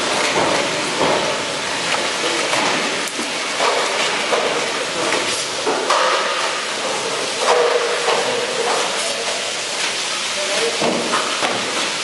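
Steady, loud hiss of a squid-processing floor, with scattered knocks and scrapes as squid are handled in plastic bins and on tables.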